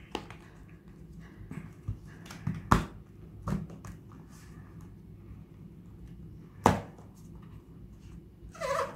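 Handling and opening a small white cardboard box: scattered light taps and scrapes of card, with two sharp clicks, about a third of the way in and about two-thirds of the way in.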